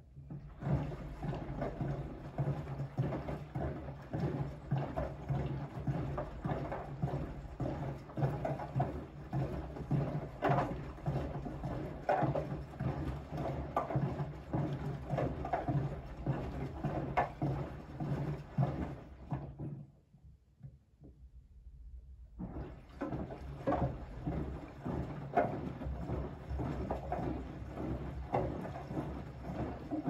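Siemens front-loading washing machine in its wash phase: the drum tumbles a pillow through soapy water, with irregular sloshing and splashing over a steady low hum. The drum stops for about three seconds two-thirds of the way through, then turns again.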